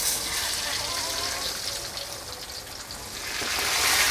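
Fish frying in hot oil in a wok, a steady sizzling hiss that swells much louder about three seconds in as the fish is worked with a spatula.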